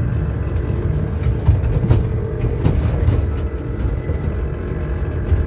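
Small electric ride-on train running along its track, heard from inside its cab: a steady low rumble from the wheels and running gear, with a few faint clicks.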